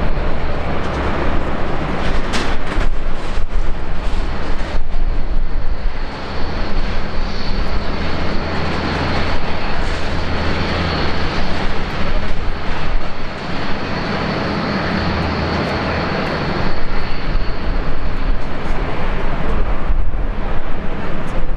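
Airbus A320's IAE V2500 turbofan engines running at low power as the jet taxis: a steady jet rumble, with a thin high whine over it through the middle.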